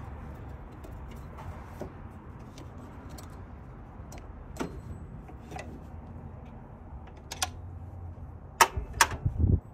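Scattered light metallic clicks and taps of hand tools and engine parts during supercharger removal, over a steady low rumble. Near the end come two sharp clacks in quick succession, then a dull thump.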